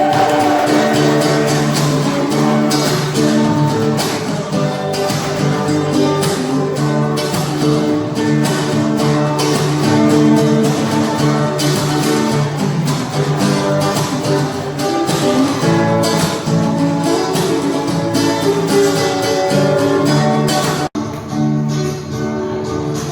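Music with sustained chords and a steady strummed rhythm. It briefly cuts out near the end, then carries on.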